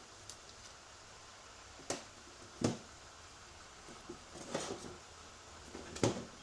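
A few sharp metal clicks and knocks from transmission parts being handled during a 6L80 teardown, with a brief rustle in between.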